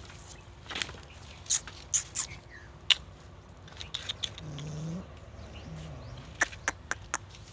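Dog giving two short, low grumbling vocalisations about halfway through, the first rising in pitch, among scattered sharp clicks.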